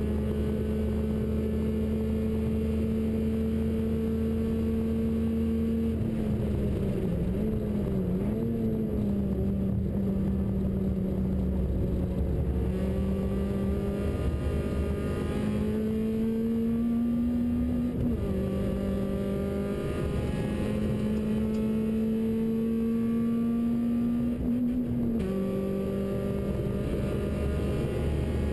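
Citroën Saxo VTS's four-cylinder engine heard from inside the cabin under hard track driving: it holds steady revs, lets off and wavers about six seconds in, then pulls up through the gears with a sudden drop in pitch at each upshift, twice, at about 18 and 25 seconds.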